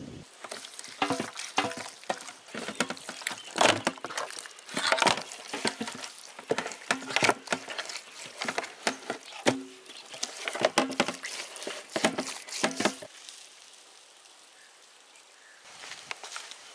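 Hands rubbing and patting a wet masala marinade into whole skinned rabbits on a steel plate: irregular squelches and slaps, stopping about three seconds before the end.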